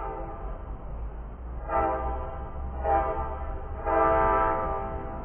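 Train horn sounding: a short blast, then three longer blasts close together, the last the longest and loudest, over a steady low rumble.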